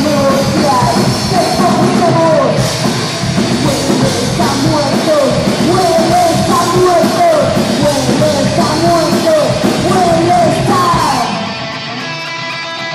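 Live punk rock band: a woman singing and yelling over electric guitar, bass guitar and drum kit. About a second before the end the playing drops to quieter sustained notes.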